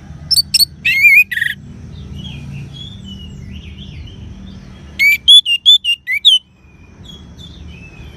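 Bird called bunglor calling in two loud bursts of short, sharp whistled notes, about four notes half a second in and about six more about five seconds in. Other birds chirp faintly between them.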